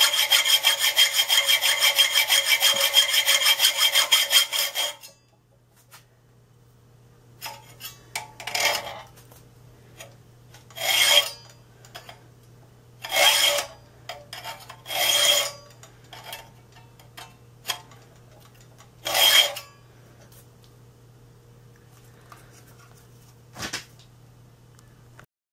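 Hand file stroking across a steel knife blade blank held in a file jig: rapid, even strokes for about five seconds, then they stop. After a pause come a handful of slower single strokes about two seconds apart, with light clicks between them.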